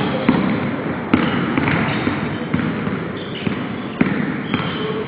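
Basketball bouncing on a hardwood gym court during a pickup game, irregular thuds about a second apart, with short high sneaker squeaks as players cut and drive.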